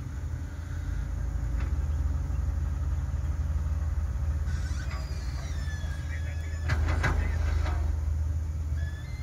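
A vehicle's engine running, a steady low rumble heard from inside the cabin, with a brief clatter about seven seconds in.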